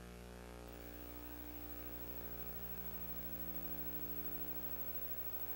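Steady low electrical hum with faint hiss, unchanging, with no other sound: background noise of the recording over an end card.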